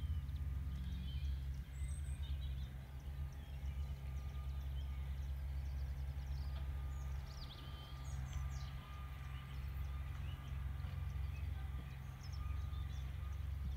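Wind rumbling on the microphone, with birds chirping faintly in the background.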